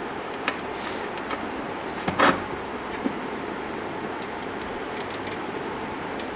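Test leads and crocodile clips being handled on an electronics trainer board: scattered small clicks and a louder brief knock about two seconds in, over a steady background hiss.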